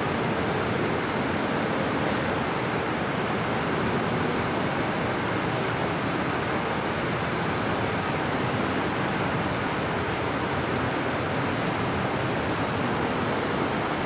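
Steady, even rushing room tone with no voices.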